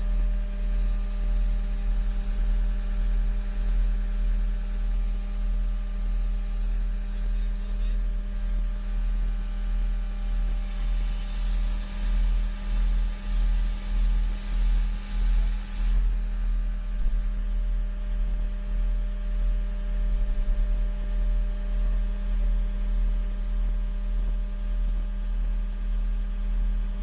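Engine of heavy equipment running steadily at idle: a constant low drone that swells a little about halfway through.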